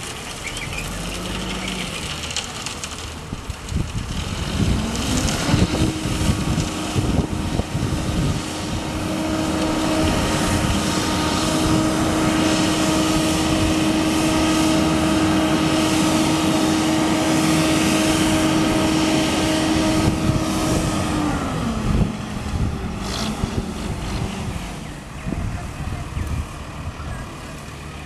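Diesel engine of an ARGO 4000 self-loading concrete mixer revving up about five seconds in and holding a steady higher speed while the tilted drum discharges concrete down its chute, then dropping back to a lower speed about three-quarters of the way through.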